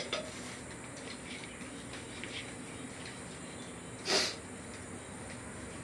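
Quiet room tone with a few faint handling clicks from the motorcycle carburetor being turned in the hand. About four seconds in there is one short, breathy puff of air from the person.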